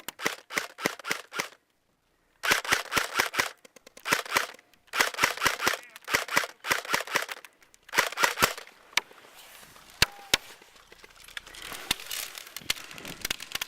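Airsoft guns firing in rapid automatic bursts of about a second each, sharp snapping shots, with a few single shots and scattered pops in the last few seconds.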